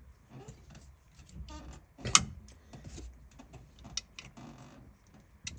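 Scattered small clicks and light rattles of parts being handled and worked at a car's steering column, with one sharper click about two seconds in.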